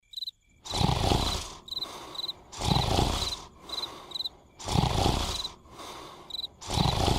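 A person snoring: four loud snores about two seconds apart, with softer breaths between them. Crickets chirp in short trills throughout.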